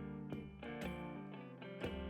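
Background music: plucked guitar notes over a steady low tone.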